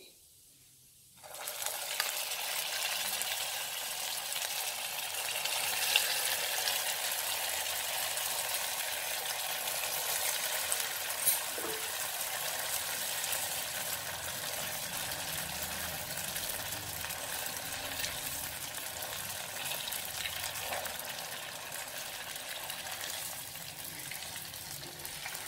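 Potato-stuffed bread rolls deep-frying in hot oil in a kadai, a steady sizzle starting about a second in. Two sharp taps cut through it, at about 6 and 11 seconds.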